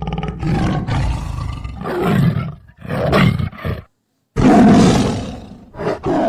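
Tiger roaring and growling in a string of rough calls. A sudden silence about four seconds in is followed by one long, loud roar.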